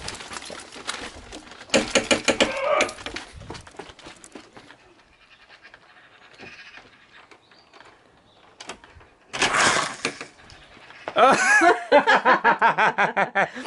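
People laughing in quick, breathy pulses, a loud burst of laughter in the last couple of seconds, after scattered short knocks and clatters earlier on.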